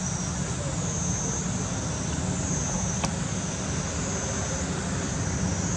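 Steady outdoor background: a low rumble of road traffic, with a high-pitched drone that swells and fades about once a second.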